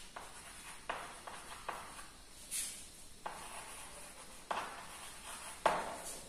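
Chalk writing on a blackboard: a series of sharp taps and short scraping strokes as the letters are formed, the loudest tap near the end.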